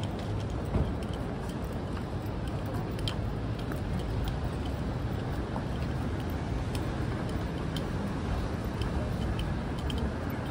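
City street ambience: a steady hum of traffic with faint, scattered clicks of footsteps on the pavement.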